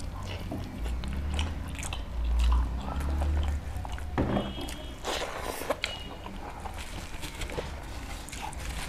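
Close-miked chewing and biting of a person eating rice and curry by hand, with many small clicks and soft knocks. Fingers mix rice on a brass plate.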